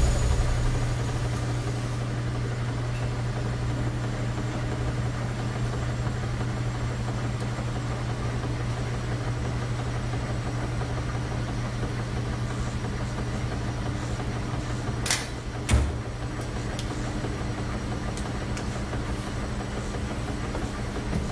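Front-loading washing machines running with a steady low mechanical hum. About fifteen seconds in come a sharp crack and, half a second later, a heavy thud, and the hum carries on.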